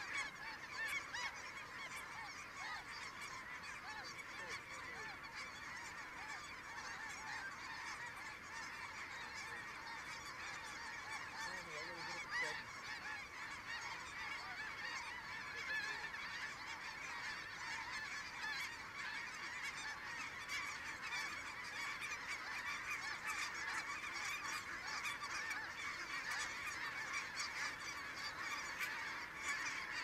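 A large flock of snow geese calling overhead: a dense, unbroken chorus of many overlapping honks.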